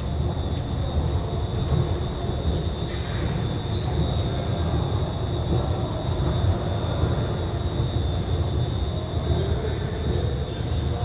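Steady low mechanical rumble with a constant high-pitched whine over it; a brief hiss about three seconds in.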